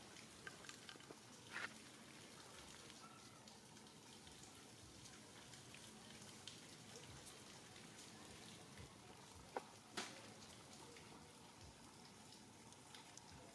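Near silence: a faint steady hiss of outdoor background, broken by a few brief soft clicks, one about two seconds in and two close together near ten seconds.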